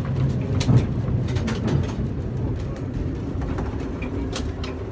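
Historic electric tram running on its rails, heard from inside the wooden car: a steady low rumble with scattered clacks and rattles.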